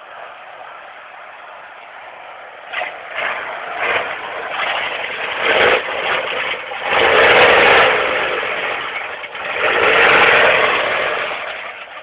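Pickup truck's engine revving hard in repeated surges, under heavy load as the truck churns through a deep mud hole. It starts at a lower steady drone, then surges about three times, loudest around the middle and again near the end.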